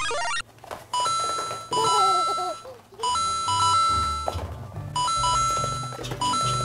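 Edited-in electronic chime sound effects over background music: a sparkly flourish at the start, then a doorbell-like two-note tone, a short lower note stepping up to a longer higher one, repeated several times.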